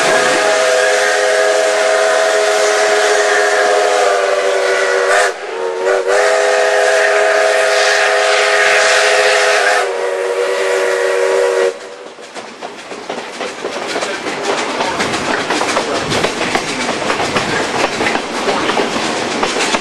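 Robert Dollar No. 3 steam locomotive's chime whistle blown in three blasts: two long ones, the second cut off by only a brief gap before a shorter third. Several tones sound together as one chord. After the whistle, the train's wheels rumble and click steadily over the rails.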